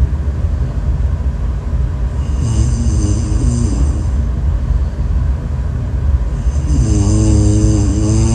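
A person snoring: a pitched, droning snore about every four seconds, a weaker one about three seconds in and a louder one near the end, over a steady low rumble.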